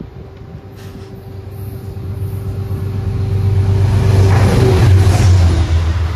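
Amtrak passenger train approaching and passing close by at speed. A low rumble of the locomotive and wheels builds steadily and peaks in a loud rush near the end as the coaches sweep by.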